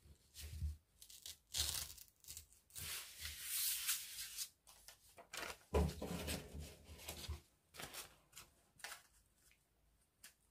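Colored paper being handled and cut with scissors: rustling, sliding paper and several longer cutting strokes in the first part, then quieter short snips near the end.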